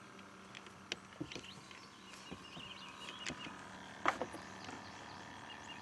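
Faint birdsong, a warbling of chirps, with a few sharp clicks and knocks scattered through it, the loudest about four seconds in.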